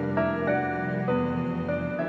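Slow, sad instrumental background music: sustained notes that change about every half second over a steady low drone.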